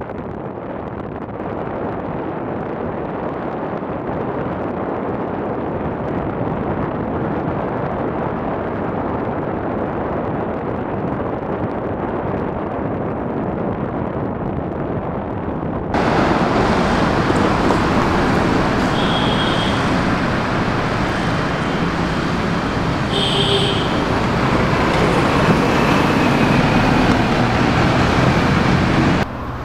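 Steady rush of wind and engine noise from a moving motorcycle, muffled at first and turning abruptly louder and brighter about halfway through, with two brief high tones later on.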